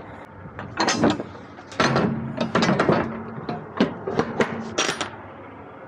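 Rear swing doors of a 53-foot trailer being shut and latched: a series of sharp metal clanks and knocks from the door latches and lock bars as a seal is put on.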